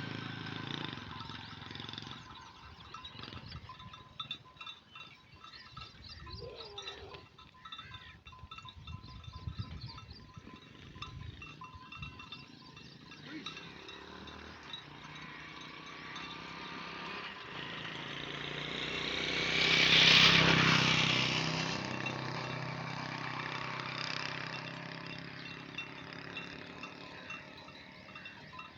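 Flock of dumba sheep grazing, with small bells tinkling faintly and a short bleat about seven seconds in. A loud rush of noise builds and fades, loudest about two-thirds of the way through.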